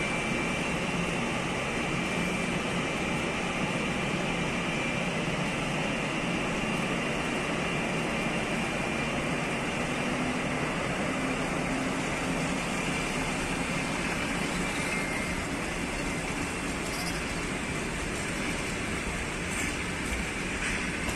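ChS7 electric locomotive pulling its passenger train out of the station: a steady hum and whine from the locomotive, with the coaches' wheels rolling over the rails. A low tone rises slightly around the middle as the train gathers speed.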